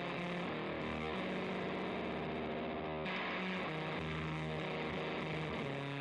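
Electric guitar, a DIY Flying V with a dual-rail humbucker, played through a Haggtronix Grassman Fuzz pedal into a Fender Hot Rod Deluxe amp on its dirty channel. Thick fuzz-distorted notes ring on, moving to a new pitch every second or two.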